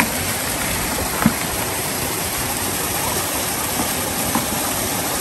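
Shallow forest stream running over rocks, a steady wash of water, with one sharp knock about a second in.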